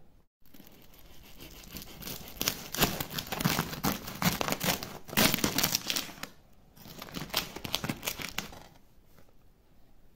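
A knife sawing through the crisp crust of a freshly baked loaf, the crust crackling and crunching in two bouts with a short pause about six seconds in.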